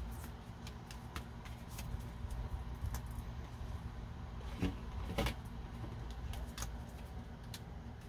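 Light clicks and taps of oracle cards being handled, with two louder knocks about five seconds in, over a steady low hum.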